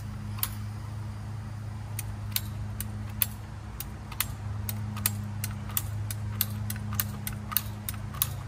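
A length of PVC pipe being recut, giving about twenty sharp, irregular clicks that come closer together in the second half. A steady low hum runs underneath.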